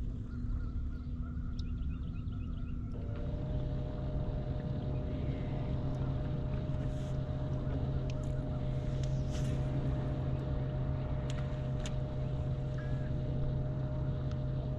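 Bow-mounted electric trolling motor on a bass boat running steadily with a hum. About three seconds in the hum shifts pitch and grows stronger, then holds, with a few short sharp clicks later on.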